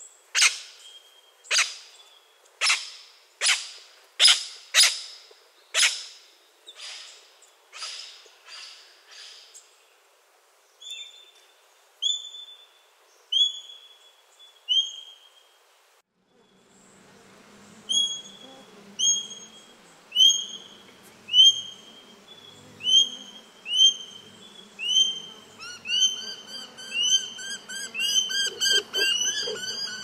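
Australian king parrot calls. A run of harsh, shrill calls about one and a half a second fades out. Then high whistled notes come about one a second, and after a short pause a steady series of short high piping whistles quickens. A second, lower-pitched series joins in near the end.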